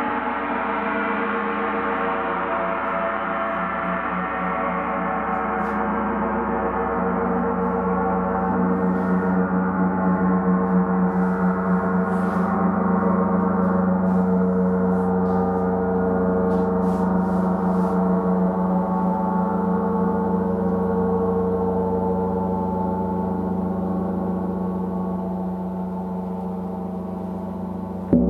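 Large gong played continuously, a dense shimmering wash of many ringing overtones. It swells in the middle and then slowly dies away, and a fresh strike comes right at the end.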